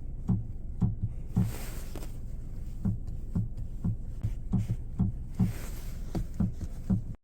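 Chevrolet Trax Crossover centre console box rattling: irregular short knocks, roughly two a second, over a steady low road rumble inside the cabin. This is the console-box rattle the owner set out to fix.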